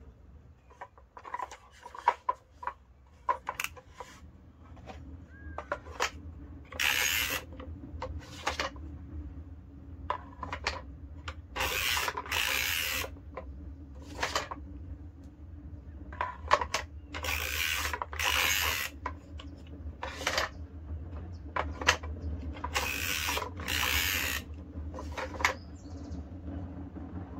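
A hand-operated wand-making jig being worked: paired swishing rubs, each under a second long, come four times, with small clicks and knocks between them. A steady low hum runs underneath.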